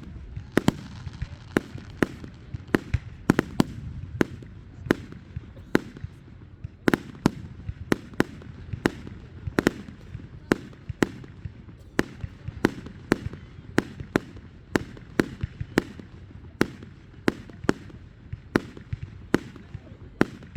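Fireworks going off in quick succession: sharp bangs, about two a second and uneven in strength, over a constant low rumble.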